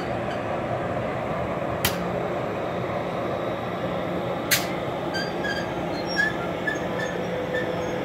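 Amtrak Pacific Surfliner passenger train rolling slowly into the station and coming to a stop, a steady rumble of the cars with two sharp clicks, about two and four and a half seconds in, and a few faint short squeaks in the second half.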